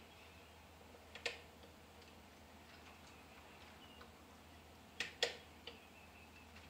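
HO scale model freight train rolling slowly on its track, giving a few sharp metallic clicks from wheels and couplers: one about a second in, then two close together near the five-second mark and a lighter one just after. A low steady hum runs underneath.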